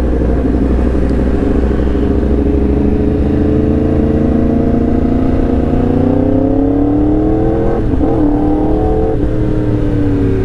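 Yamaha R1M's crossplane inline-four accelerating hard, its pitch climbing steadily, breaking briefly about eight seconds in, then falling near the end. The crossplane crank gives it a deep, NASCAR-like sound.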